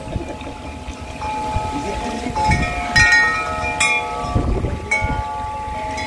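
Chimes ringing: several struck notes at different pitches that ring on and overlap, with new strikes about halfway through and near the end.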